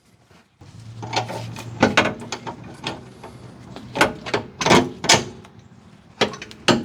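Irregular metal clanks, knocks and clicks as a suspension arm and its hardware are handled and fitted into a car's knuckle, about seven or eight separate hits.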